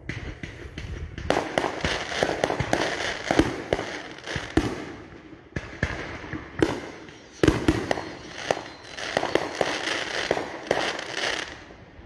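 Fireworks going off in quick volleys: dense crackling and popping mixed with sharp bangs, in three main clusters, the loudest bang about seven and a half seconds in.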